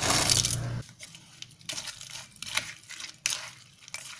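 A wooden spoon stirring and scraping cashew nuts and chilli paste in a granite mortar: irregular soft scrapes and clicks. It follows a loud rush of noise that cuts off suddenly about a second in.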